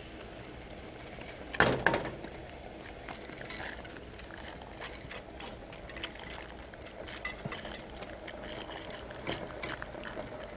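Wet washed split lentils being tipped and scraped out of a stainless steel bowl into a pot of water, with soft splashing and scattered small clinks. The bowl knocks against the pot more loudly about a second and a half in and again near the end.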